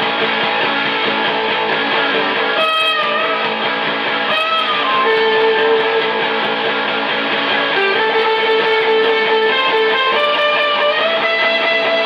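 Electric guitar played with sustained, ringing notes, with bent notes about three seconds and four and a half seconds in.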